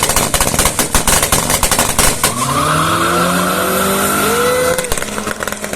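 Turbocharged drag car crackling with a rapid string of pops on the launch limiter for about two seconds. It then launches, and the engine revs up with its pitch climbing steadily, broken by a gear change near the end.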